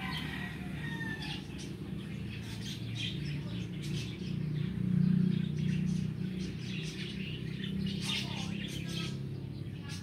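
Birds chirping in the background over a low steady hum, which swells about five seconds in, with scattered light clicks.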